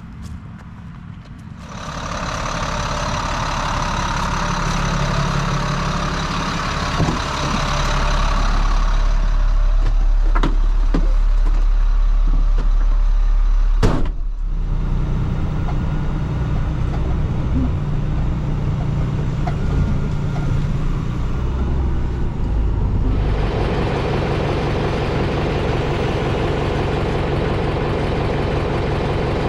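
Heavy farm vehicle engine running steadily under a loud mechanical rush, which comes in about two seconds in. A sharp click about halfway through is followed by an abrupt change in the sound, and the rush returns near the end.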